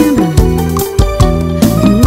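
Live band music with no singing, a steady beat and a note sliding down in pitch just after the start.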